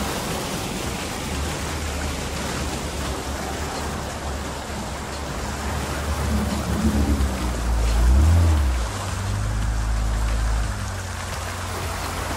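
Steady rushing and splashing of water thrown up by a Honda Ridgeline's front tyre as the truck drives through a shallow creek, heard close to the wheel.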